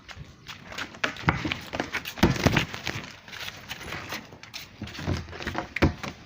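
Irregular footsteps and scuffs on a hard floor, with louder knocks about two seconds in and again near the end.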